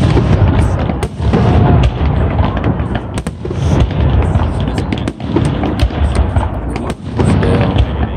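Aerial firework shells bursting in a rapid barrage: overlapping booms with many sharp cracks and crackling, without a break.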